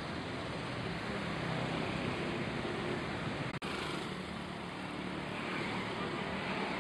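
Diesel bus engine idling steadily, a low even rumble with a hum. The sound drops out for a split second about halfway through.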